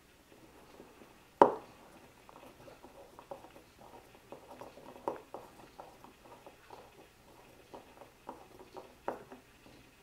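A screwdriver turning a small 8-32 machine screw into a freshly tapped hole in a plastic CNC spindle housing: a run of faint, irregular clicks and scrapes, after one sharp knock about a second and a half in.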